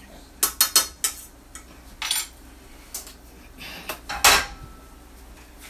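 A metal utensil clinking and scraping against a skillet of ground beef: a quick run of clinks in the first second, a scrape about two seconds in, and a louder clatter of cookware a little past four seconds.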